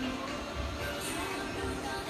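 Background music with held notes over a pulsing bass line.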